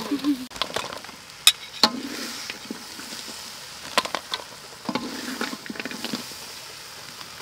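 Metal spatula and ladle scraping and clinking against a steel wok and a steel serving tray as fried chicken and green banana are scooped out, with scattered sharp clinks over a steady hiss.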